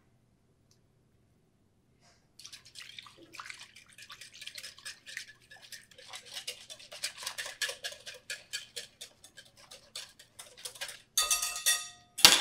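Metal wire whisk beating sourdough leaven into water in a glass bowl: a fast run of scraping clicks of the wire against the glass. Near the end a ringing clink and one sharp knock as the tools are set down.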